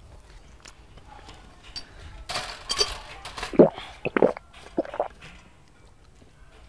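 Glass clinking as a bottled drink is served: a brief rustle, then a few short clinks and knocks of glass on glass.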